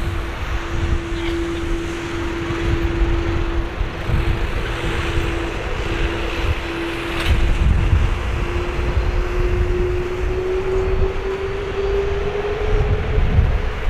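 Jet engines of an Airbus A330-200 running with a deep rumble and a steady whine that climbs in pitch over the last few seconds as the engines spool up for the takeoff run.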